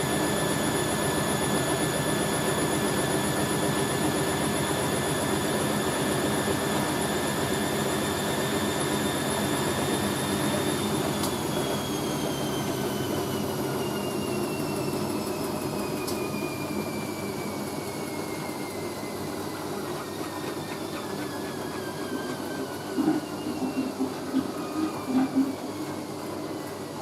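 Hoover A3060 Electronic 1100 washing machine spinning a load of towels: a steady high motor whine that starts falling in pitch about halfway through as the spin winds down, with a few clunks near the end.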